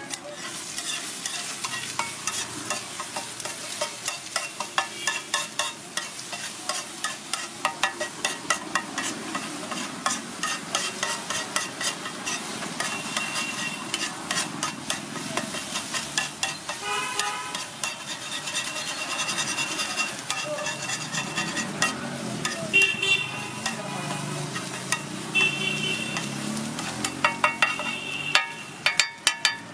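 Metal spatula rapidly tapping and scraping on a hot griddle as scrambled egg sizzles, with vehicle horns honking several times.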